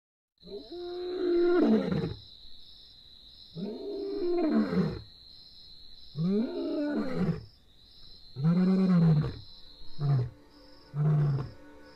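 Male lion roaring: four long, deep roars each about a second and a half long, then a run of shorter grunts about once a second, the typical close of a lion's roaring bout. A steady high whine and faint regular chirping sit behind it.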